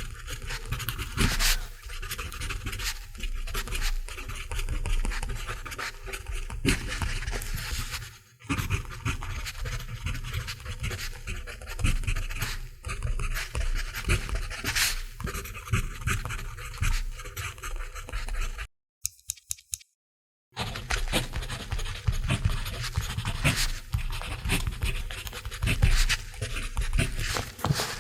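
Mechanical pencil writing on paper: a continuous scratchy rasp of quick, irregular strokes. About two-thirds of the way through it cuts out to near silence for about two seconds, then resumes.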